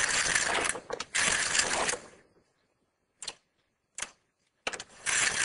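Knitting machine carriage pushed across a double needle bed, knitting rows: two rattling passes of about a second each, one straight after the other. A pause with two short clicks follows, then another pass starts near the end.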